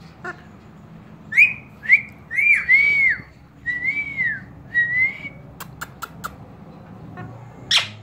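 Indian ringneck parakeet whistling a run of about eight short, clear notes, each rising and falling. Then come four quick clicks and one short, sharp call near the end.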